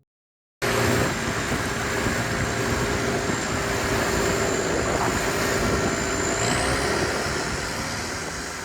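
Longtail boat engine running steadily, cutting in abruptly about half a second in, with a thin high whine that climbs in pitch later on. It eases off near the end.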